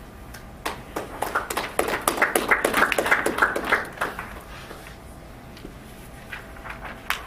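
Brief applause from a small audience: scattered claps that thicken for about three seconds, then die away. A single sharp knock comes near the end.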